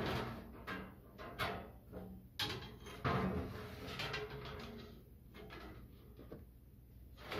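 Sheet-metal surround panels and trim frame of a Vogelzang wood stove insert being handled and fitted against the brick fireplace: irregular scraping and rattling of thin metal, with several sharp knocks, the loudest about three seconds in.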